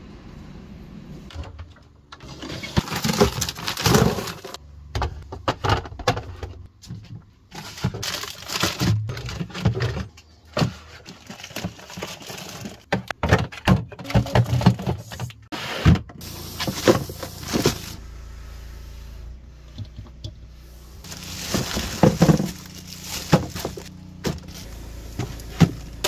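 Groceries being handled and stowed in a refrigerator: cans knocking against each other and the drawer, plastic packaging rustling and crinkling, items set down on the shelves with irregular knocks and clatters.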